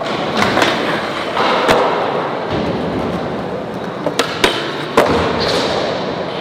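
Skateboard wheels rolling on smooth concrete, with the board sliding along a metal rail in a frontside boardslide. Several sharp clacks of the pop and landing come through, the loudest about five seconds in.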